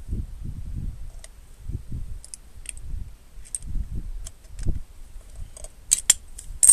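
Handling of a mobility scooter's steering track rod and track rod end as the rod end is turned by hand on its thread: irregular low knocks and rubbing, with small metallic clicks. Sharp metal clinks ring out near the end.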